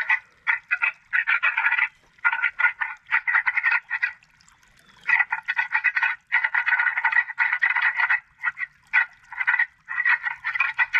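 Whitetail deer antler-rattling call, the clash and clatter of two sparring bucks' antlers, played loudly as a recording through the Johnny Stewart Executioner electronic game caller's speaker. It comes in rapid, irregular bursts of rattling, with a pause of about a second partway through.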